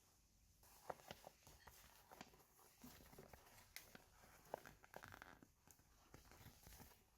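Faint handling sounds of toys and packaging: many small clicks and taps with soft rustling, starting about a second in.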